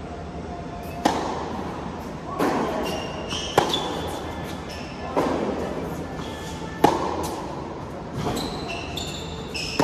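Tennis rally on an indoor hard court: the near player's racket hits crack sharply about every three seconds, starting with a serve about a second in, with the far player's softer returns in between, each hit ringing on in the hall's echo. Short high squeaks come between shots.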